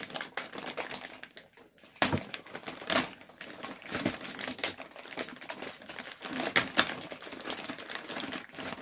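Plastic shrink-wrap on a multipack of water bottles being pulled and torn open by hand: a steady run of crinkling crackles, with a few louder sharp snaps.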